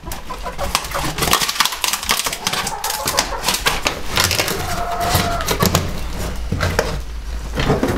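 Thin wooden slats of vegetable crates being snapped and broken apart by hand for stove kindling: a fast, dense run of cracking and splintering wood.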